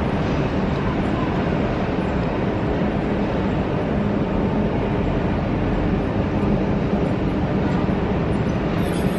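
Steady roar of jet aircraft engines heard across an airport apron, with a faint steady hum running underneath.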